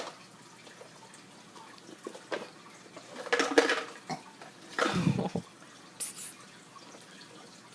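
Water splashing in four short bursts over a quiet background, the longest about half a second.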